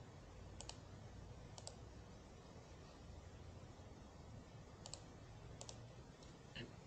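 Four faint computer mouse-button clicks over quiet room tone, each a quick double snap of press and release, spread unevenly over several seconds.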